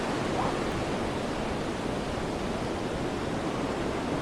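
Steady rushing seaside ambience of ocean surf and wind, with no distinct events.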